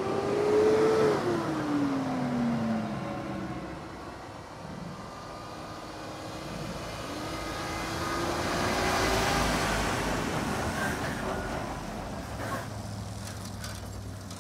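Military vehicles driving past one after another. A light armoured 4x4 passes about a second in, its whine falling in pitch as it goes by. Then a heavy 8x8 tractor unit hauling a low-loader trailer passes, its engine rising to a peak about nine seconds in, and near the end a steady low engine hum.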